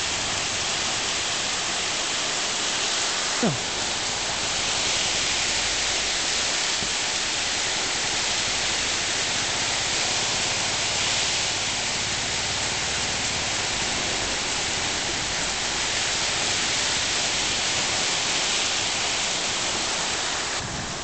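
Torrential rain pouring down in a steady, dense hiss, mixed with the rush of floodwater.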